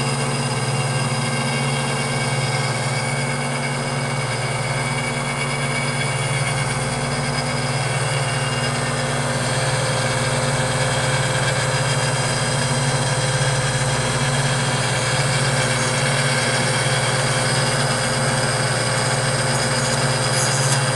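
A lathe converted to a cam grinder is running steadily, with its tool post grinder grinding a practice cam blank for a scale model engine camshaft. The profile is copied from a master cam through a follower on the cross slide. It makes a steady motor hum with several held tones, and a fainter tone comes and goes every two seconds or so.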